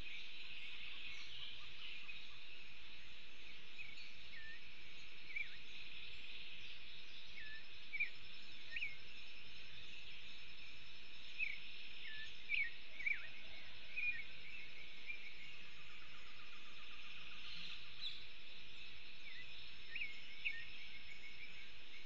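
Forest ambience: a steady high hiss with a thin continuous insect whine, and many short high bird chirps and call notes scattered throughout.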